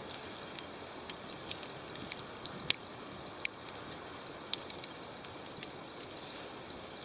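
Steady rushing outdoor background noise, with scattered small faint clicks; the sharpest come about two and a half and three and a half seconds in.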